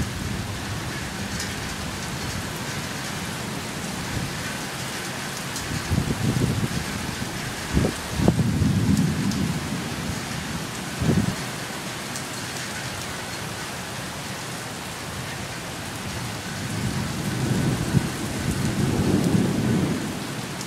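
Heavy thunderstorm rain falling steadily, with thunder rumbling several times over it, the longest roll in the last few seconds.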